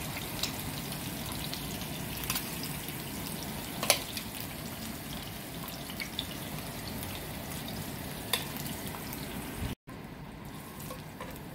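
Oil sizzling steadily in a frying pan under pan-fried salmon fillets, with a few sharp clicks of metal tongs against the pan as the pieces are lifted out, the loudest about four seconds in.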